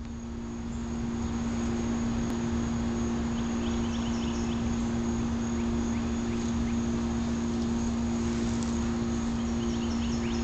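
A steady low hum that does not change in pitch, with short bird chirps now and then and a faint high insect buzz.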